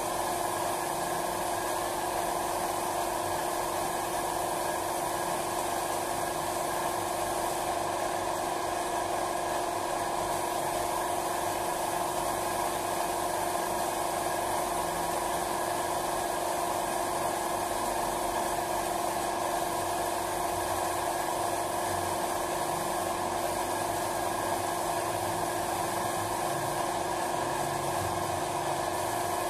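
Steady hum of a running electric motor with an even hiss over it, unchanging in level or pitch throughout.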